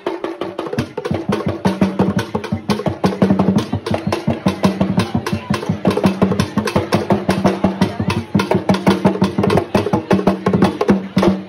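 Traditional Ghanaian drumming: drums beaten with sticks in a fast, dense rhythm of strikes with sharp wooden clicks, accompanying a dance.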